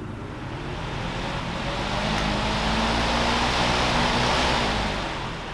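Electric fan switched on and running, its rushing air and motor hum building up over the first couple of seconds, then easing slightly near the end.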